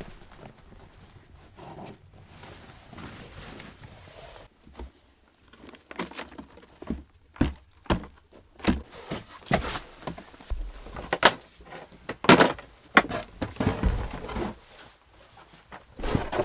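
Soft rustling of a backpack and clothing, then a run of irregular footsteps and thuds from about six seconds in as gear is handled and set down on wooden boards.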